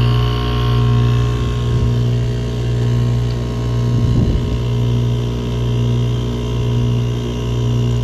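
Ground-source heat pump unit running with a loud, steady hum. Its loop circulating pump runs without moving water, a sign that the unit is either low on liquid or has a pump problem.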